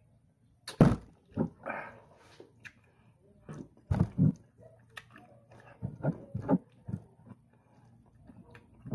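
Chewing and mouth sounds of a person eating rice and boiled egg by hand, in short irregular bursts close to the microphone. A sharp knock a little under a second in, the loudest sound, as the soda bottle is set down on the table.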